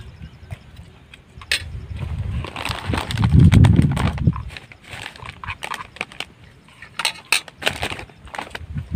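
Close-up eating of noodles from a bowl: slurping and chewing, with scattered spoon clicks and plastic rustling. A loud low rumble comes about three to four seconds in.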